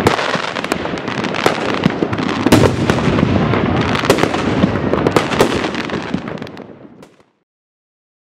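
Large fireworks display: a dense rattle of crackling with many sharp bangs from bursting effects. It dies away about six and a half seconds in and cuts to silence about a second later.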